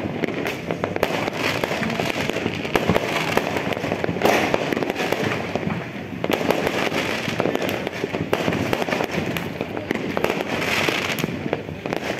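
Many fireworks going off on all sides: a dense, continuous run of bangs and crackling, with louder swells every few seconds.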